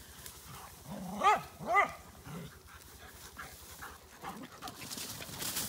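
Dog giving two short, high-pitched yelps about half a second apart during rough play with other dogs, followed near the end by a rising hiss.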